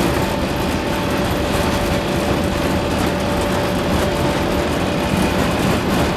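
Steady rushing noise inside an Airbus A380 cockpit, from the engines and airflow, with a thin steady hum under it.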